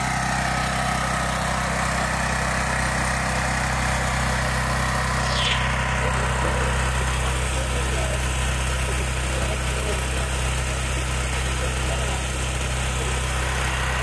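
A Gentron 10,000-watt dual-fuel portable generator's 420 cc single-cylinder engine running steadily on gasoline. Its carburetor's fuel-cutoff solenoid is unplugged, which the owner thinks leaves the solenoid open so fuel can flow.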